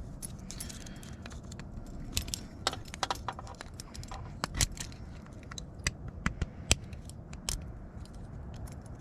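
Small metal parts of a lever door handle clicking and clinking as they are handled and fitted back together: irregular sharp clicks, a few louder ones around the middle.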